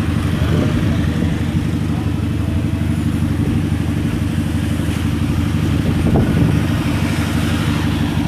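A motor vehicle engine running steadily at idle, close by, a low even hum.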